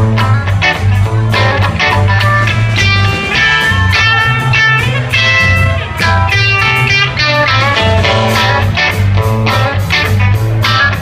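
Live band playing without vocals: electric guitar over electric bass and a drum kit, with a steady beat.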